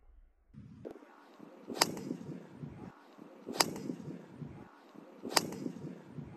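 Golf driver striking a ball off the tee: three sharp cracks of the clubface meeting the ball, about a second and a half to two seconds apart, over steady outdoor background noise.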